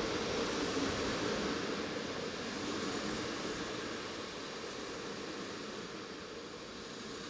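PKP Intercity passenger coaches rolling past along the platform: a steady rushing wheel-and-rail noise that fades gradually throughout.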